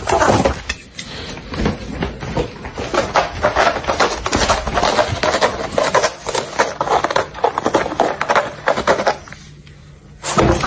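A cat's claws raking a corrugated cardboard scratcher in quick, rasping strokes, stopping near the end.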